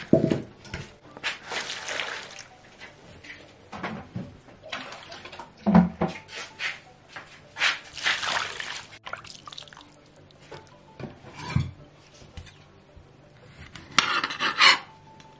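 Water poured from a plastic jug over tomatoes in a plastic bowl, splashing and sloshing in several bursts as the tomatoes are rubbed clean by hand, with a few knocks.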